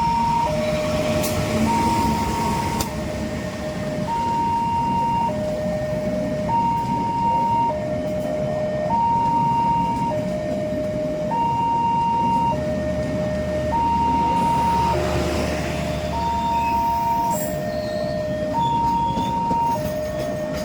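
Railway level crossing warning alarm: two electronic tones alternating high and low, each held about a second, repeating steadily to signal an approaching train. Traffic noise runs underneath, with a low rumble about two-thirds of the way through.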